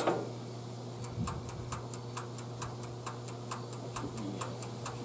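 Clockwork timer of a Magic Chef toaster oven ticking rapidly and evenly, after a single click of the knob at the start. A steady low electrical hum runs underneath.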